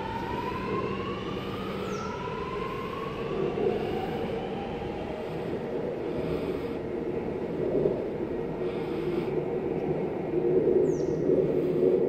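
Sydney Metro Alstom Metropolis train pulling out of the station, its traction motors whining in several tones that rise in pitch over the first few seconds and then fade into a steady rumble of the departing train. Near the end a bird gives a couple of short high chirps.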